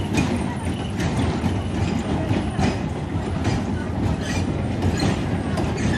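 Kiddie ride train with frog-shaped cars running round its track: a steady low rumble, with a clack about once a second from the wheels on the rails.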